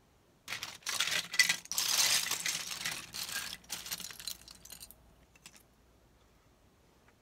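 Loose plastic LEGO bricks clattering against each other as hands rummage through a heap of them. The clatter starts about half a second in and dies away after about four seconds, leaving a few faint clicks.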